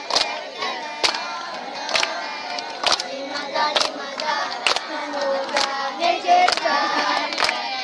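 A group of boys singing together, with sharp hand claps about once a second keeping the beat.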